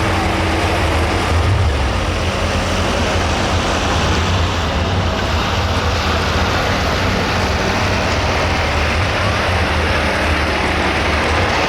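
Pro stock 4x4 pulling truck's engine running loud and steady.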